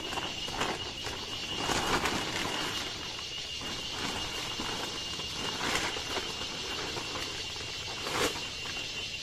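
Blue plastic tarpaulin rustling and crinkling as it is pulled and draped over a stick frame, with a few sharper crackles, over a steady high-pitched tone.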